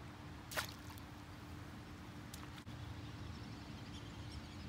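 Faint outdoor background: a low steady rumble with a faint steady hum, broken by one sharp click about half a second in and a softer tick a couple of seconds later.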